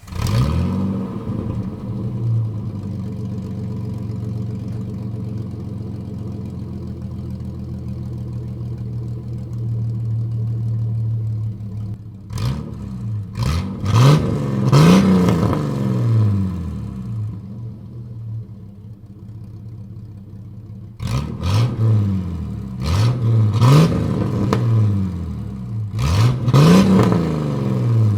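1989 Jeep Cherokee XJ's 4.0L straight-six running through a straight-piped exhaust with the muffler deleted: it idles steadily, then is revved in a few quick throttle blips about halfway through and again near the end, settling back to idle in between.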